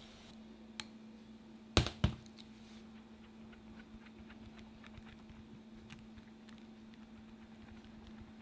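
Small metal strainer handled over a paper-lined cake pan while batter is strained through it: light scattered ticks and clinks, with two sharper knocks about two seconds in, over a steady low hum.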